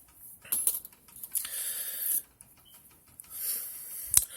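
Rustling and light clicking from small objects being handled close to the microphone, with a longer rustle in the middle and a sharp click near the end.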